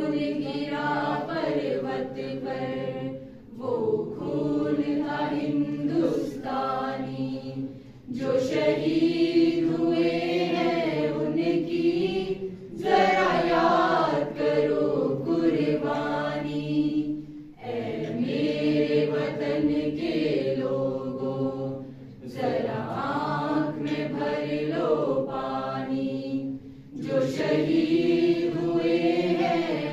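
A mixed group of young women and men singing a Hindi patriotic song together, unaccompanied, in sung phrases of about four to five seconds with short breaks for breath between them.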